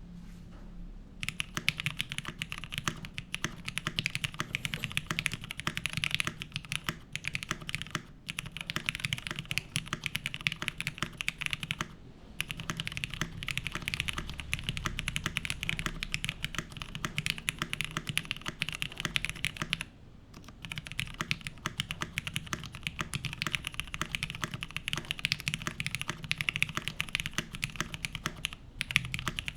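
Continuous fast typing on an Exclusive E7-V1 top-mount mechanical keyboard with lubed Cherry Nixie switches, a polycarbonate plate and GMK keycaps: a dense stream of keystroke clacks starting about a second in, with a few brief pauses.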